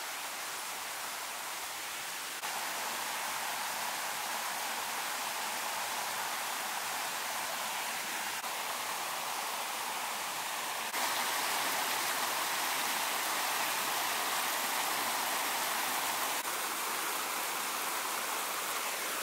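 Fast-flowing river running over rocks: a steady rush of water, its level shifting slightly a few times.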